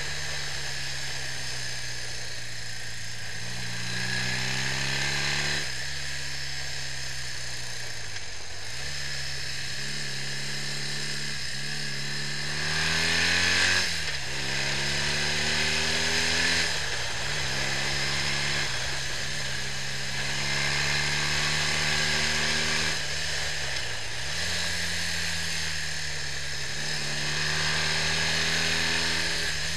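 BMW R65 boxer twin motorcycle accelerating on the road, its engine note climbing and then dropping sharply at each gear change, about eight times, with a few stretches held at a steady speed. A steady hiss runs under it.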